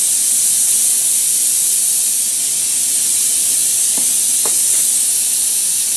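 Gas brazing torch flame hissing steadily at the joint while a steel post is silver-brazed to an angle-iron arm, with two faint ticks about four and four and a half seconds in.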